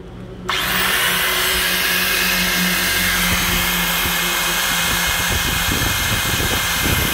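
Hitachi electric angle grinder switched on about half a second in and running steadily at full speed with no load: a steady motor whine over a low hum.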